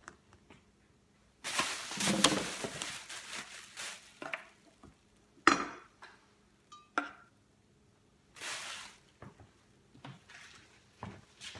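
Kitchenware being handled: a couple of seconds of rattling clatter, then scattered sharp clinks and knocks, with a brief high tone about seven seconds in.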